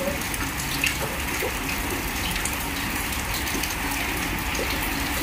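Steady storm rain: an even hiss of falling water with no break.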